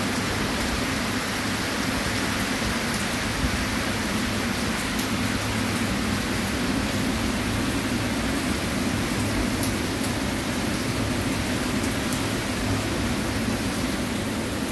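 Steady rain falling, a constant hiss with faint scattered drop ticks.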